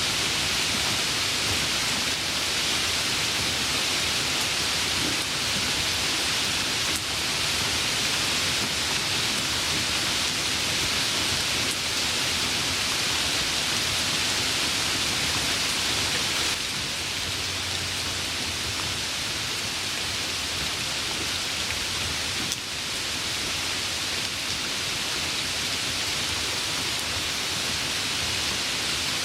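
Steady rain falling, a dense even hiss of drops, easing slightly a little past the halfway point.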